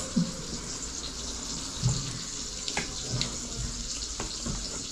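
Steady hiss of fish frying in hot oil, with a few soft knocks.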